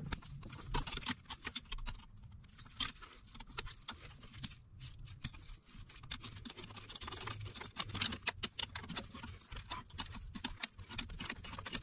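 Hand tools clicking and tapping on metal in a long run of small, irregular clicks as the Allen bolts holding a high-pressure fuel pump are loosened.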